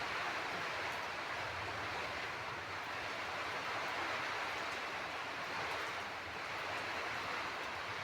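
Steady rain falling: a dense, even hiss that holds at one level throughout.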